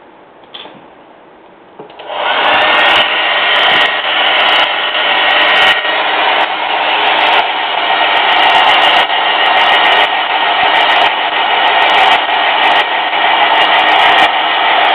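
Hand-held hair dryer switched on about two seconds in, its whine rising as it comes up to speed, then blowing steadily to dry fresh acrylic paint on a carved wooden dog.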